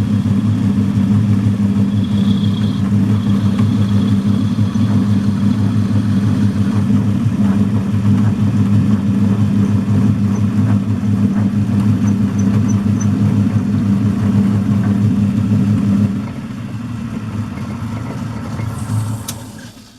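Old metal lathe running with a steady motor hum. About sixteen seconds in it drops in level, then winds down to a stop near the end, with one short sharp click just before it stops.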